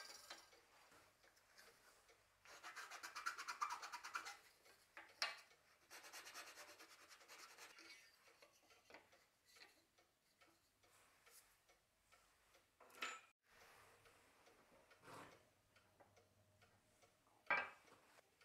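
Faint rubbing and scratching of small walnut pieces being handled, in two short stretches, with a few light knocks as pieces are set down.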